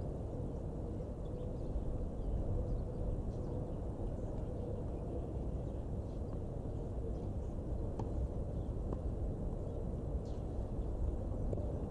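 Outdoor ambient noise: a steady low rumble, with a few faint short clicks partway through.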